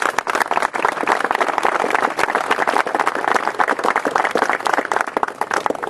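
Audience applauding: a few seconds of steady clapping that stops near the end.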